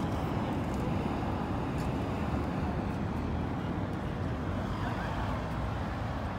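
Steady urban street ambience: a constant low rumble of road traffic.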